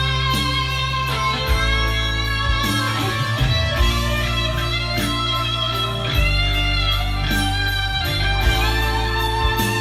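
Guitar music with sustained electric guitar notes over a bass line that changes pitch every second or two, played back through a Yamaha YSP-2700 sound bar.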